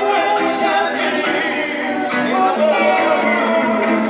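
Live roots reggae band playing, with sung vocals over keyboards, guitars and drums.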